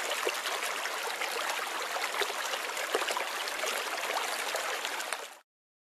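Shallow rocky creek running steadily, a rushing water sound flecked with little splashes; it cuts off suddenly near the end.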